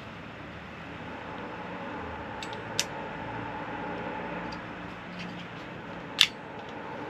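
Two sharp clicks of hand crimping pliers closing on crimp terminals on a light's wires, the second, about three seconds after the first, the louder, over a steady background hum.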